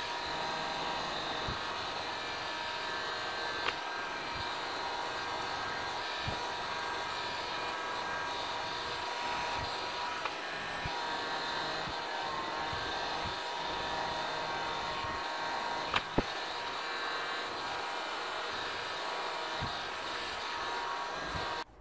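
A hot-air blower running steadily with an even whirr, heating the adhesive under the phone's camera glass. A few light taps come through about 4 seconds in and twice around 16 seconds, and the blower cuts off suddenly near the end.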